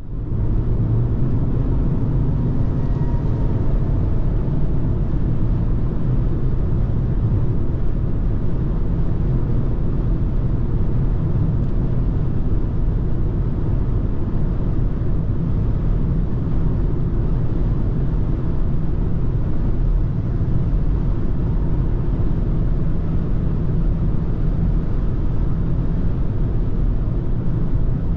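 In-cabin sound of a BMW X2 xDrive20i with a 2.0-litre turbocharged four-cylinder, cruising at about 150 km/h: steady deep road and wind noise with a low engine hum underneath. It cuts in suddenly at the start.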